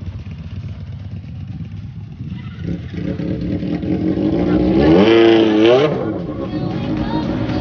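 A motorcycle engine running, building from a low rumble to quick revs up and down about five seconds in, the loudest part, then easing back.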